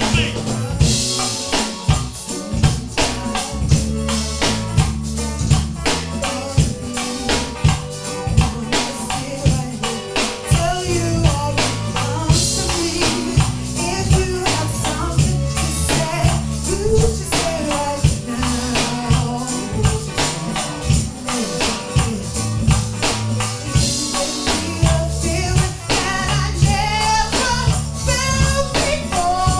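Background music with a steady, fast percussive beat over a bass line, and a melody.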